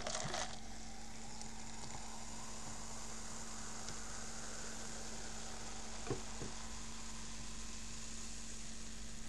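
Freshly poured cola fizzing in two cups, the foam head hissing and crackling steadily, a little stronger in the first couple of seconds. A faint steady electrical hum lies underneath.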